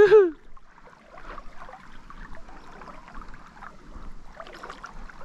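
Soft, uneven sloshing and trickling of river water around a small float drifting downstream, with light splashes and ticks.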